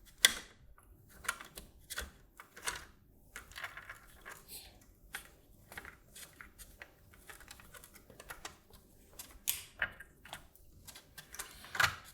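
Irregular small clicks and taps of hands threading M4 nylon nuts finger-tight onto machine screws around a circuit board, the loudest click just after the start.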